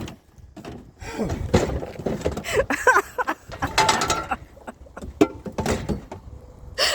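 Scrap metal being handled: irregular clattering and clanking, with a few sharp knocks near the end.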